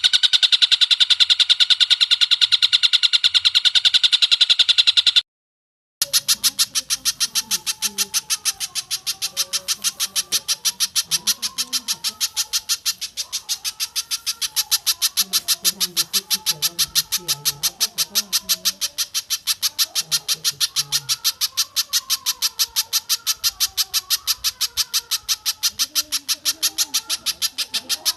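Recorded bird calls of spiderhunter and stork-billed kingfisher: a fast, even run of repeated notes, cut by a brief silence about five seconds in, then a higher, thinner stream of rapid repeated notes.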